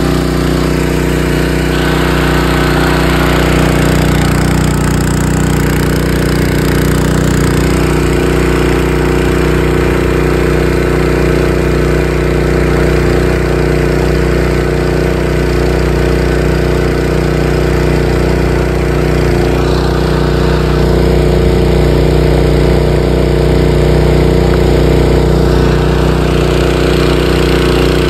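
Honda FJ500 power weeder's single-cylinder four-stroke petrol engine running steadily at a constant speed, loud and close.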